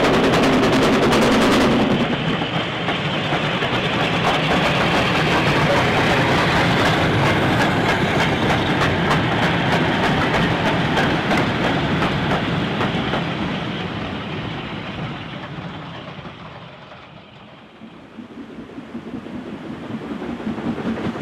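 WD Austerity 2-8-0 steam locomotive working hard with a freight, its exhaust loud for the first two seconds, then the wagons clattering past over the rail joints and fading away. Near the end, the exhaust beats of a second steam locomotive grow louder as it approaches.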